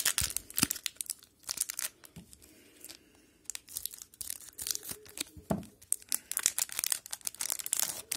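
Hockey card pack wrapper being torn open and crinkled in a series of crackly bursts as the cards are pulled out.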